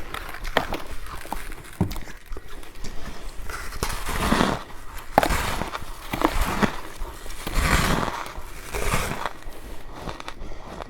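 Close-miked chewing and crunching of freezer ice: a series of crisp crunches with sharp cracks, coming about once a second.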